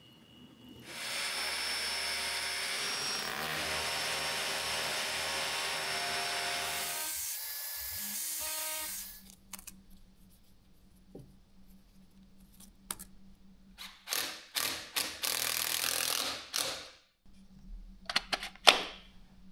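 A power drill runs steadily for about eight seconds, boring mounting holes into the workshop wall, and shifts in pitch shortly before it stops. Then come scattered clicks, short bursts and a sharp knock as a red three-phase wall outlet is fitted in place.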